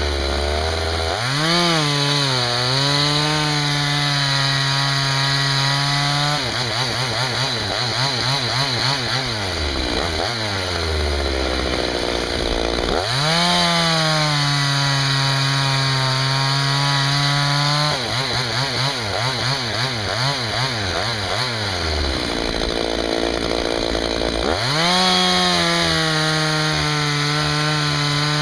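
Husqvarna 61 two-stroke chainsaw revving up to full throttle, then dropping and wavering in pitch as it bogs into the wood, and falling back to idle. This happens twice, and it revs up a third time near the end.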